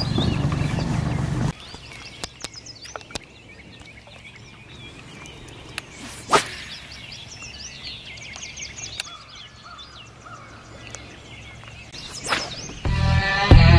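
A fishing rod swishes through the air on a cast about six seconds in, and again about twelve seconds in, over songbirds chirping. A louder low sound cuts off abruptly about a second and a half in, and music with a beat starts just before the end.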